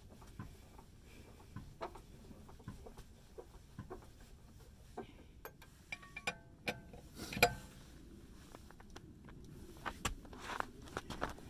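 Scattered light clicks and short ringing metallic clinks from hand tools worked at a car wheel: the scissor jack and a cross lug wrench on the lug nuts. The loudest clink comes about seven and a half seconds in.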